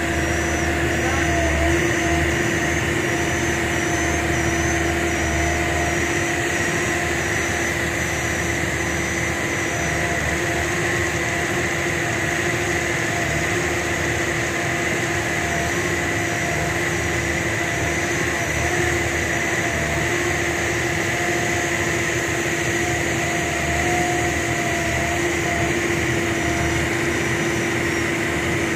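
New Lonking excavator's diesel engine running at a steady speed, with a constant low rumble and several steady whining tones over it, unchanging throughout.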